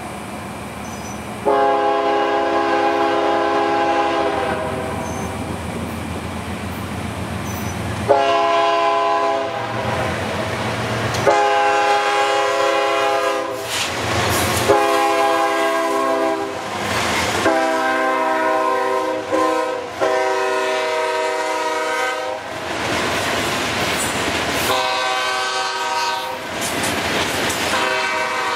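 Air horn of a CSX GE ES40DC diesel locomotive blowing a series of long chord blasts, about eight in all, sounding for a road crossing. Under the blasts the train rumbles past with wheels clacking over the rail joints.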